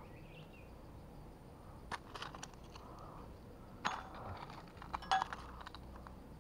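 Rocks knocking and clinking against each other as stones are picked up and handled, in small clusters of sharp clicks about two, four and five seconds in.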